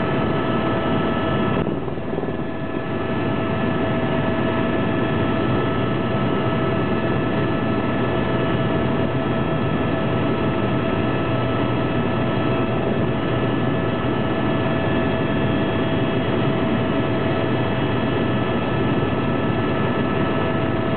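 Helicopter engine and rotor noise heard from inside the cabin in flight: a loud, steady drone with a constant high whine running through it, dipping briefly about two seconds in.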